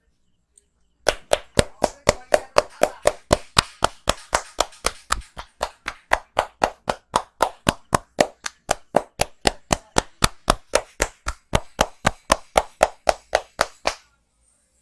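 Barber's hands striking rhythmically during a head massage, a fast even run of sharp clapping slaps at about four a second that starts about a second in and stops suddenly near the end.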